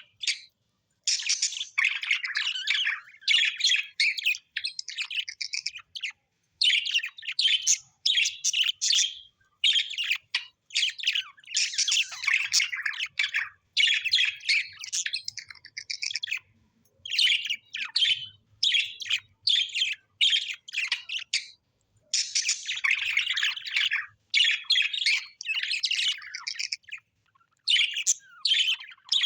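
Small parrots chattering and chirping in busy, high-pitched phrases of one to a few seconds, broken by short silent gaps.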